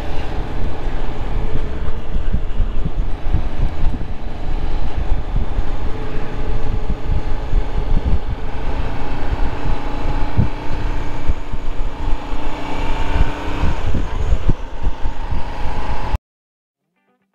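Motorcycle riding on the road, heard from the bike: a steady engine drone under heavy wind rumble on the microphone. It cuts off abruptly about 16 seconds in.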